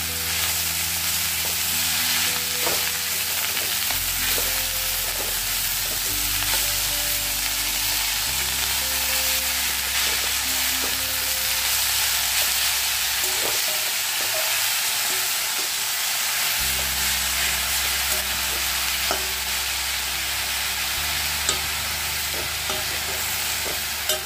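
Chopped fenugreek leaves, potatoes and brinjal sizzling in oil in a kadai while being stirred and turned with a metal spatula. The hiss is steady, with occasional light scrapes and taps of the spatula on the pan.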